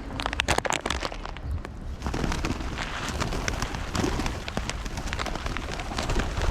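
Crackling rustle and patter of bird seed and its bag being handled: a run of sharp clicks for the first two seconds, then a dense rain-like crackle.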